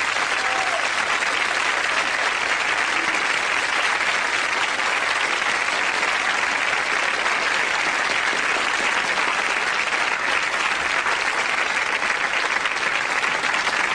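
Studio audience applauding, a steady, sustained mass of clapping.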